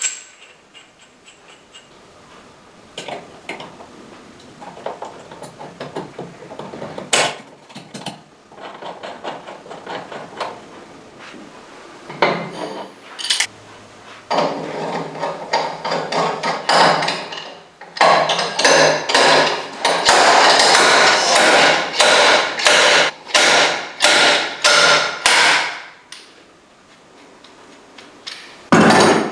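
A hammer striking metal during motorcycle steering-head bearing work: scattered lighter knocks at first, then a run of about a dozen hard blows, a little more than one a second, each ringing briefly, in the second half.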